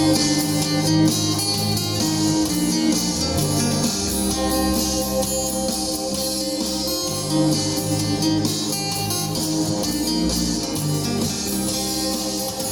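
Instrumental band music with no singing, led by guitar over sustained bass notes, at a steady level.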